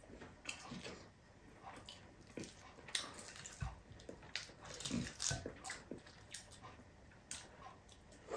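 Close-up eating sounds: chewing and lip smacks with scattered soft crunches and clicks as crispy fried milkfish and rice are eaten by hand.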